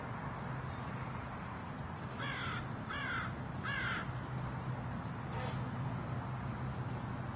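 A crow caws three times in quick succession, about two seconds in, over a steady low background hum.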